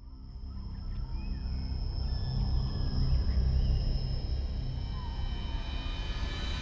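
Atmospheric documentary soundtrack: a low rumble that swells over the first couple of seconds, with a steady high-pitched whine held above it and a few faint sliding tones.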